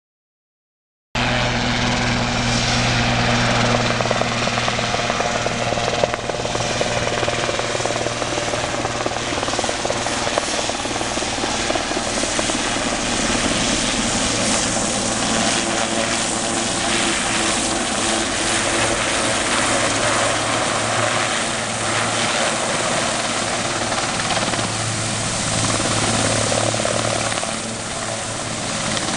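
Sikorsky S-61 helicopter, its twin turboshaft engines and main rotor running steadily and loudly, as it flies in and hovers low over water. The sound cuts in suddenly about a second in.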